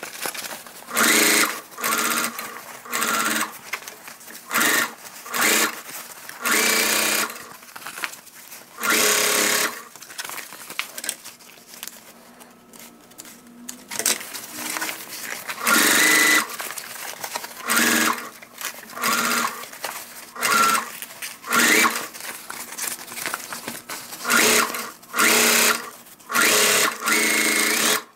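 Electric sewing machine stitching in many short bursts, stopping and restarting every second or so, with a pause of a few seconds a little before the middle.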